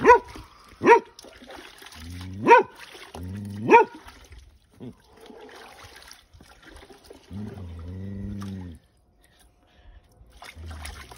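A man's sharp yelps from the shock of ice-cold water, four in the first four seconds, then a long low groan about seven seconds in, with water splashing as he scoops it over himself.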